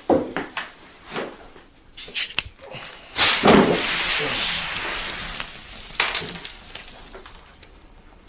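Knocks and taps of things being handled, then about three seconds in a sudden loud hiss as a green glass bottle of fizzy drink is opened, fizzing out over the next few seconds. A light clink follows near the end.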